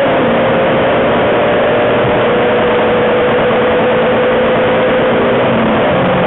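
Interior sound of a Renault Twingo RS at full speed: its 1.6-litre four-cylinder engine pulling steadily in a high gear under heavy, hissing road and wind noise in the cabin, as the car gathers speed on a wet track.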